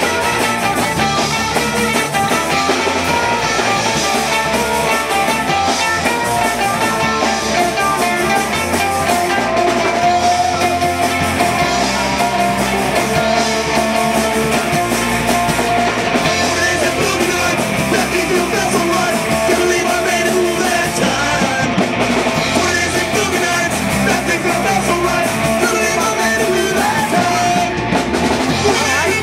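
Live punk-style rock played loud and steady on an amplified mandolin with a band, the bass notes shifting through the chord changes; near the end the mandolin player sings into the microphone.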